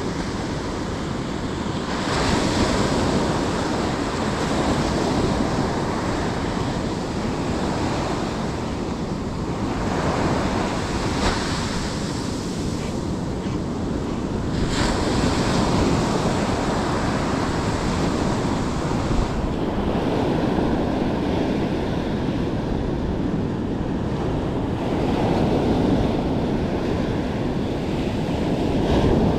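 Ocean surf breaking and washing up a sandy beach, a continuous rush that swells each time a wave breaks.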